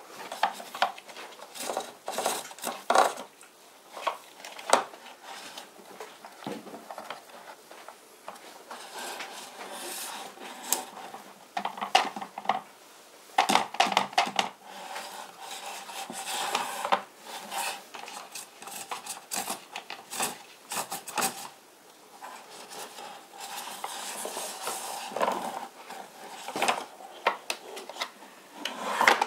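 Hard plastic toy truck being handled and turned over on a tabletop: irregular clicks, knocks and light rattles of plastic, with stretches of rubbing and scraping in between.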